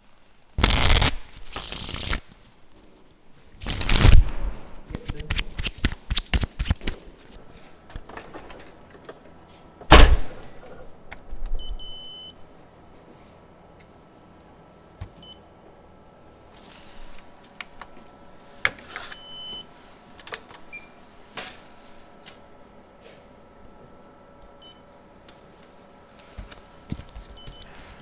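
Microphone handling noise: several loud knocks and rattles, with a heavy thump about ten seconds in. Then an office multifunction copier hums steadily, with short high electronic beeps every few seconds.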